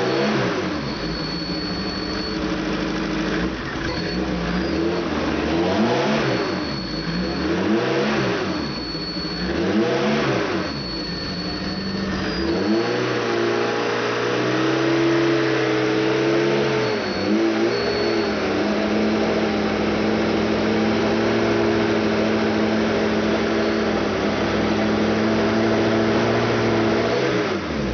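Opel 2.4-litre four-cylinder engine with Motronic fuel injection being revved. Several quick throttle blips rise and fall over the first twelve seconds, then the engine is held at a steady raised speed with a brief dip, and drops back near the end. A faint high-pitched whistle comes and goes over the revs, probably a vacuum leak.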